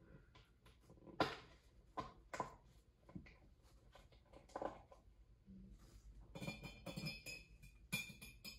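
Faint, scattered clicks and knocks of a clear plastic culture container being handled, then a cluster of ringing clinks near the end as metal forceps are drawn from a glass jar.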